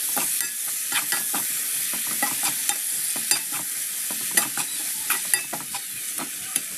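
Chopped vegetables sizzling in a frying pan while a spatula stirs them, with frequent irregular scrapes and taps of the spatula against the pan over a steady hiss.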